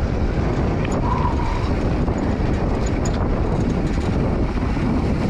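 Wind buffeting the microphone over mountain bike tyres rolling fast on a packed dirt trail, with a brief high squeal about a second in.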